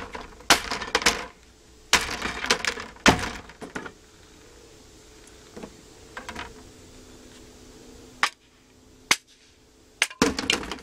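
Hammer blows smashing a wooden dollhouse: four sharp knocks in the first three seconds or so, then a few fainter knocks and clattering of loose panels.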